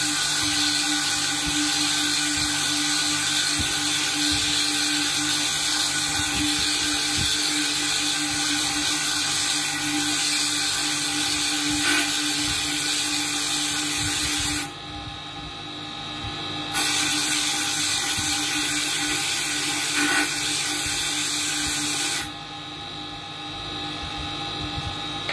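Small motor-driven abrasive grinding point shaping a natural sapphire bead held against it under water: a loud, steady, high grinding hiss over the motor's whine. The grinding stops suddenly for about two seconds around halfway through and again near the end, where the bead is lifted off and only the quieter motor keeps running.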